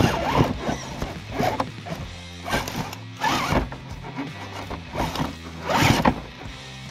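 Electric motor and gear drivetrain of an RC rock crawler whirring in repeated short throttle bursts as it climbs a rock ledge, the strongest about six seconds in. Background music with sustained low notes plays underneath.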